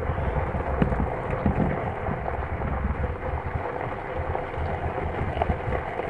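Jeep's engine running, heard inside the cabin as a steady low rumble with a faint steady hum, and a couple of light knocks as the camera is handled.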